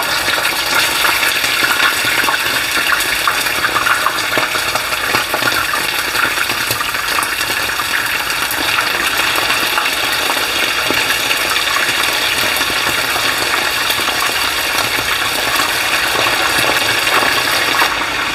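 Hot oil sizzling and crackling steadily as raw chicken leg pieces shallow-fry in a frying pan, more pieces being laid into the oil one after another.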